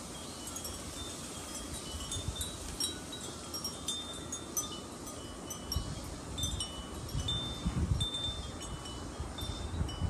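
Wind chimes ringing irregularly at several high pitches. From about halfway through, gusts of wind rumble on the microphone.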